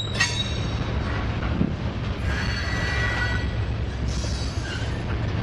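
Freight train of covered hopper cars rolling past close by, a steady low rumble of wheels on rail with a sharp clank at the start. A brief high squeal from the wheels rings out in the middle.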